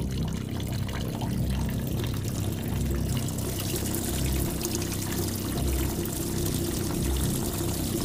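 Cooked spaghetti and its water being poured into a perforated metal colander: a steady rush of draining water.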